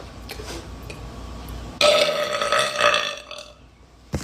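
A girl's long, loud burp starting about two seconds in and held at a steady pitch for about a second and a half.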